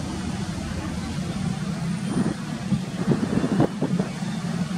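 Distant, steady low rumble of the Airbus A350's Rolls-Royce Trent XWB jet engines as the airliner rolls slowly along the runway. A few short louder noises come between two and four seconds in.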